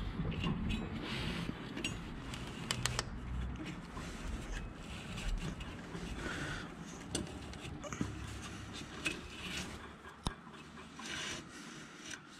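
Rubber mower deck V-belt being worked by hand around the PTO clutch pulley and the spring-loaded idler pulleys: rubbing and scraping with scattered light clicks and knocks.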